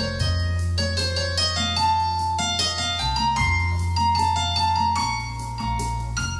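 Alto saxophone playing a melody over electronic keyboard accompaniment with a sustained bass. The melody is a quick run of short notes followed by longer held notes.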